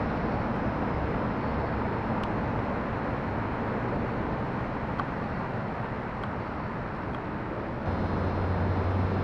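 Steady background rumble with a few faint clicks; a low hum grows louder near the end.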